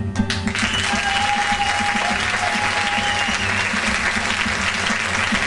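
Audience applauding at the end of a live song, the clapping starting about half a second in as the last notes of the band die away, then holding steady.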